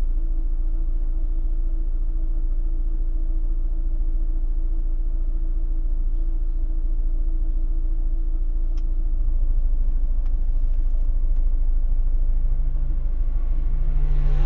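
Fiat Fiorino van's engine idling steadily, heard from inside the cabin. About two-thirds of the way in a second engine note joins and grows louder toward the end.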